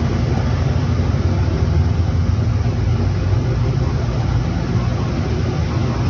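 Steady low mechanical rumble with a hiss on top, unchanging throughout.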